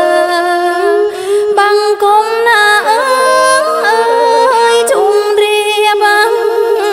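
Khmer Surin song: a woman singing a wavering, gliding melody over a bowed Khmer two-string fiddle (tro).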